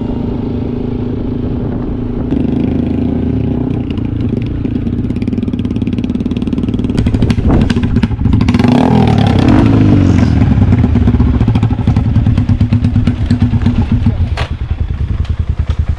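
Custom bobber motorcycle built on a Yamaha Scorpio, its single-cylinder four-stroke engine running steadily, getting louder about halfway through as the engine speed rises and then falls back.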